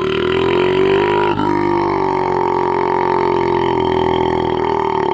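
A woman's long, deliberate belch, held as one deep, steady drone.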